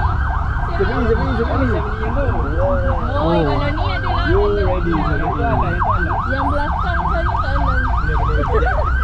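An emergency vehicle's siren in a fast yelp, about four rising-and-falling sweeps a second, over a low steady rumble of traffic.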